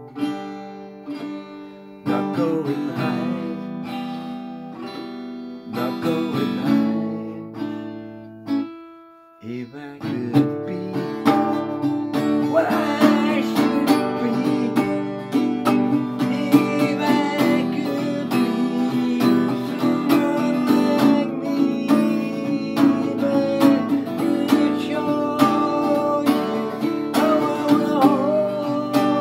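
Acoustic guitar played as an instrumental passage: spaced chords left to ring at first, a brief pause about nine seconds in, then steady, continuous strumming.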